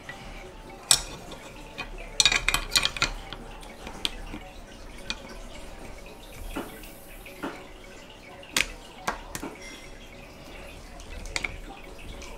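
Metal airsoft V2 gearbox shell halves and internal parts clicking and knocking as the shell is closed up by hand: scattered light knocks, with a quick run of clicks about two seconds in.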